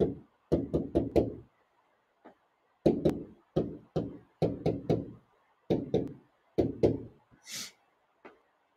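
A marker writing on a board: short knocks and taps in quick clusters as each stroke of the handwritten figures hits the surface.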